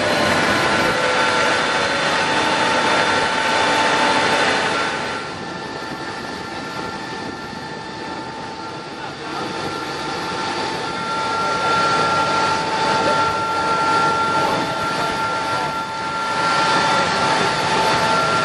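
Jet engine wash: a steady rushing hiss with several steady high whining tones over it. It turns quieter for a long stretch in the middle and swells again near the end.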